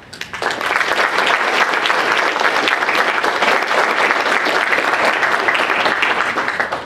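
Audience applauding: many people clapping at once, building up within the first half second and dying away near the end.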